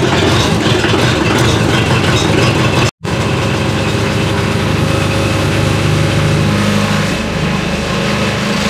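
International Harvester 444 diesel tractor engine running steadily just after a cold start with glow plugs. The sound cuts out for an instant about three seconds in, and the low engine note shifts about seven seconds in.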